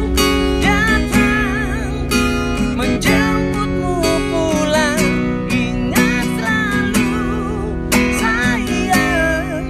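A man singing with vibrato to his own strummed acoustic guitar accompaniment.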